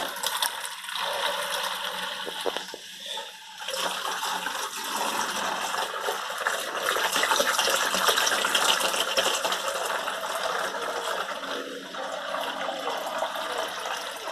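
Cooled wort pouring from a hose into a plastic fermenting bucket: a steady splashing gush of liquid, dipping briefly a few seconds in and loudest in the middle.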